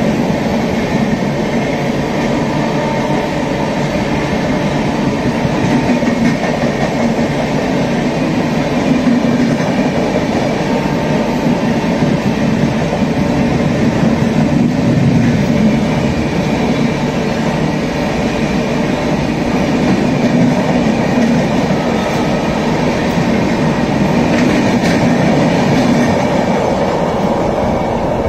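New Delhi–Howrah Rajdhani Express passing at speed, its LHB coaches' wheels making a steady, loud rush and rumble on the rails as the rake goes by.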